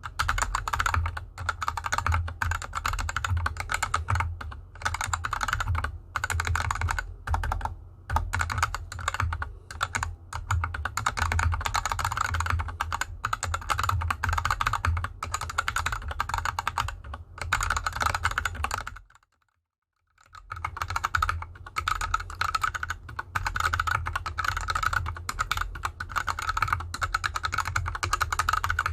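Continuous typing on a GK64X mechanical keyboard with unlubed Gateron Yellow linear switches and DSA keycaps: a dense stream of key clacks over a low thump. The typing stops for about a second and a half, two-thirds of the way through, then resumes with the keyboard on an artificial grass mat instead of felt fabric.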